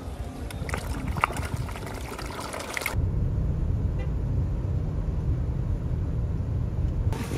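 Koi splashing at the water's surface as they crowd in to be fed, with sharp slaps. About three seconds in this gives way to the steady low rumble of a moving car, heard from inside the cabin.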